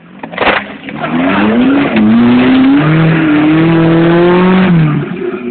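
Off-road 4x4's engine revving hard as it climbs a muddy bank with its wheels spinning. The revs rise about a second in, dip briefly, then climb and are held high before dropping off near the end. There is a sharp knock about half a second in.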